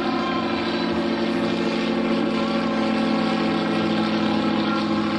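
Helio Courier light aircraft's single piston engine and propeller running steadily as the plane flies a display pass overhead, an even drone at constant power.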